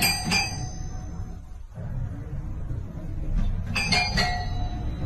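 Toy piano keys struck by a cat's paw: a couple of bright, bell-like notes at the start and three more a little before the end, each ringing briefly. A low steady rumble runs underneath.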